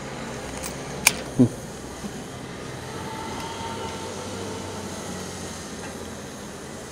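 Petrol pump nozzle dispensing fuel into a motorcycle tank, a steady rushing hiss, with a sharp click about a second in and a short thump just after.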